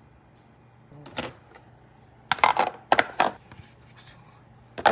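Clear plastic food container being handled and packed: a click about a second in, then clusters of sharp plastic clicks and knocks around the middle and again near the end.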